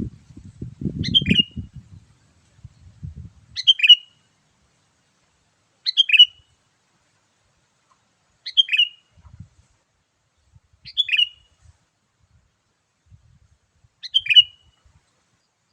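Sooty-headed bulbul call played as a lure: the same short, bright phrase repeats six times, about every two and a half seconds. A low rumble runs through the first two seconds.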